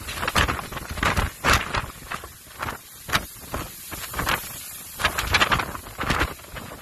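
Strong storm wind buffeting the phone's microphone in irregular, gusty blasts, several in quick succession and then easing.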